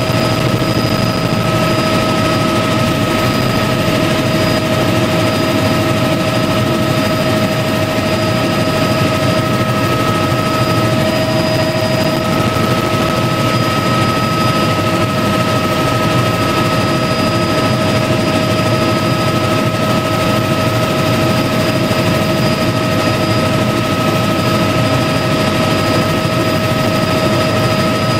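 Light helicopter in flight, heard from inside its cockpit: a steady, loud rotor and engine drone with a constant high whine on top.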